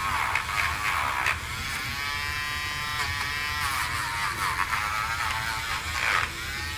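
Battery-powered dog nail grinder running with a high motor whine that dips in pitch and recovers as the grinding bit is pressed against the nail. It runs on weak batteries, which the owner says sound like they are getting low.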